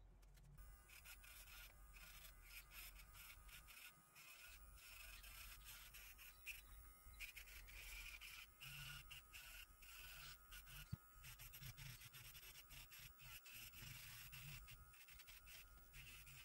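Electric nail drill running faint and high-pitched, starting about half a second in, its bit grinding against a fingernail in short scratchy touches.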